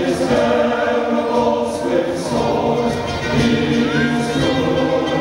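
Choral music: a choir singing long held chords, the soundtrack of a fireworks show.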